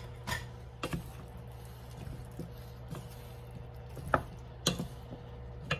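Wooden spatula stirring chopped vegetables and pork in a stainless steel skillet, with several sharp knocks of the spatula against the pan, over a steady low hum.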